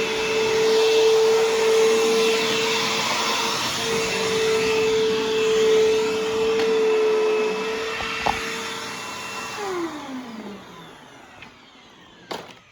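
Bissell CleanView Helix bagless upright vacuum running with a steady whining tone over its motor noise, a belt noise the owner guesses comes from a slightly loose belt. About nine and a half seconds in it is switched off and winds down, its pitch falling, with a click near the end.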